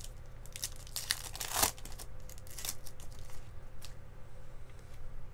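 Foil wrapper of a baseball card pack crinkling and tearing as it is opened. It gives scattered sharp crackles, with a denser crinkly stretch about a second in.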